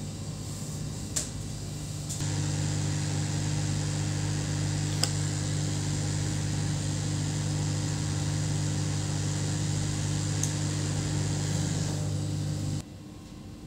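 Steady hum and rushing air of a small electric blower fan, growing louder about two seconds in and cutting off suddenly near the end, with a few faint ticks.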